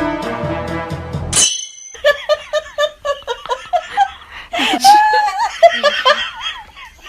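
Music that stops about a second in, then high-pitched laughter in quick repeated bursts.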